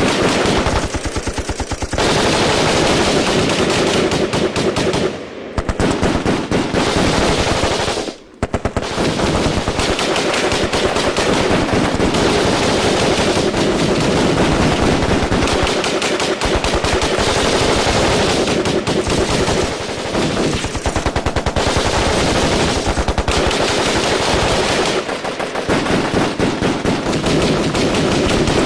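Automatic gunfire in a firefight: rapid shots in long, near-continuous bursts, with a short break about eight seconds in.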